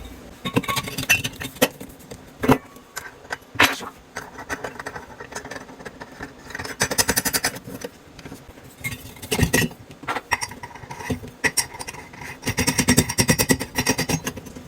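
Knocks, clinks and stretches of rapid rattling and ticking as kitchen sink basket strainer parts and their nut are handled and fitted.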